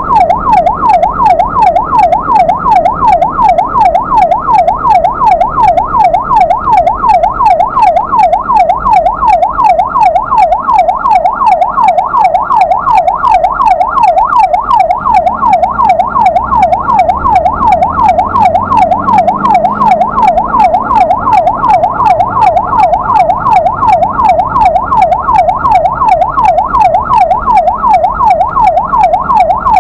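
Ambulance electronic siren on its fast yelp setting: a rapid, unbroken up-and-down wail sweeping several times a second, with the vehicle's engine rumbling low beneath it.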